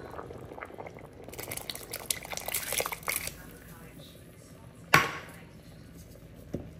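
Red lentils being added to a steel pot of cooking dal: a rattling clatter for about two seconds, then a single sharp clank of metal on the pot about five seconds in.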